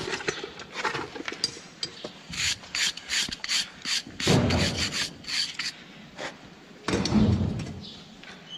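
Farrier's hoof rasp scraping across a laminitic horse's hoof: a quick run of short strokes, about three a second, with two heavier, deeper scrapes in the second half.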